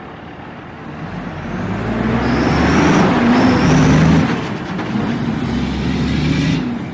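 A large vehicle engine running hard, building up loudly from about a second in with a rush of noise over it, easing off a little past the middle.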